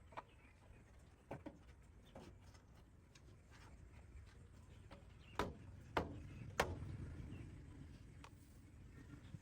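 Scattered light clicks and knocks, with three sharper knocks close together a little past the middle, over a low rumble.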